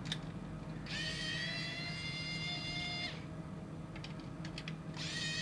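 Cordless electric precision screwdriver whining as it backs small screws out of a plastic display base: the motor spins up with a slightly rising whine about a second in, runs steadily for about two seconds and stops, a few light clicks follow, and the whine starts again near the end.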